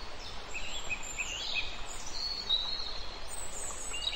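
Outdoor woodland ambience: small birds chirping and singing over a steady background noise, with a quick run of short chirps in the first half and a longer high phrase around the middle.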